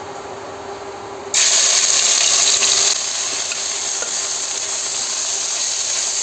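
Finely chopped garlic and ginger dropped into hot oil, sizzling loudly from about a second in.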